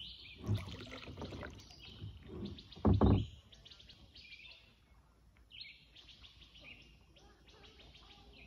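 Songbirds chirping and trilling again and again over a faint outdoor background. A few low thuds come near the start, and the loudest, a heavy rumbling thump, comes about three seconds in.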